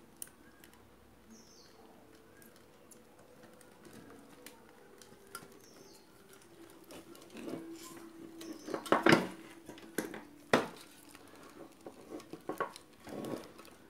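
Hands and tools handling a desktop computer power supply on the bench: scattered light clicks, taps and scrapes, with a louder run of clatter about nine to eleven seconds in.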